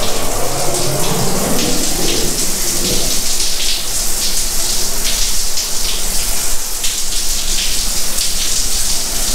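Ceiling-mounted square rainfall shower head running, water falling in a steady hiss onto a tiled shower floor.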